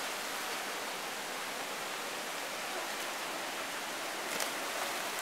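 Steady rush of a mountain river flowing over rocks, with a faint splash about four and a half seconds in as a swimmer lands in the water.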